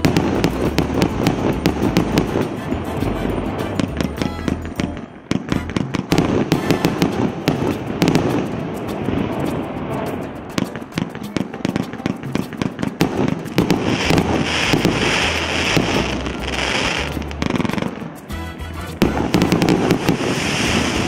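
A multi-shot firework cake of 1.25- and 1.5-inch tubes firing a rapid, dense string of shots and bursts, with a brief lull about five seconds in.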